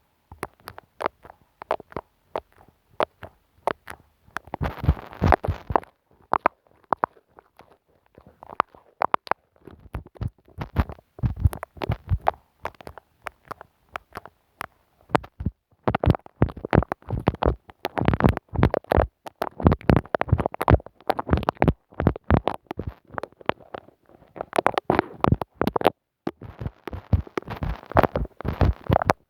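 Glue stick rubbed directly on a microphone, giving dense sticky crackling and clicking in irregular bursts with short pauses between.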